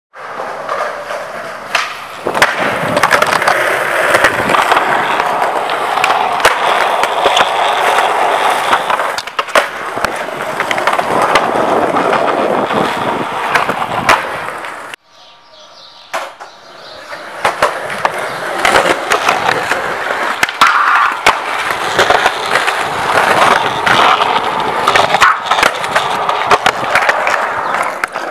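Skateboard wheels rolling loudly on concrete, broken by many sharp clacks of the board popping, striking ledges and landing. It cuts out suddenly about halfway, then comes back as a second run starts.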